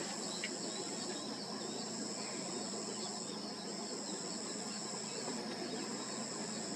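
Insects such as crickets or cicadas keeping up a steady, high, shrill chorus, one whine dipping briefly about every two seconds, with faint scattered bird chirps over a light background hiss.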